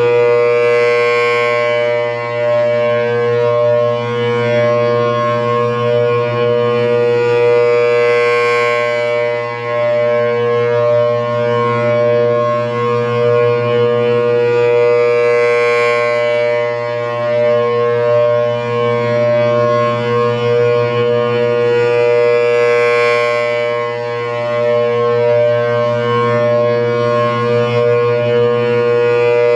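Federal Signal Thunderbolt 1000AT civil defense siren with a 4/5-port rotor, installed in 1959, sounding a steady alert tone at full speed: a two-note chord held at constant pitch. The sound swells and fades about every seven seconds as the horn rotates.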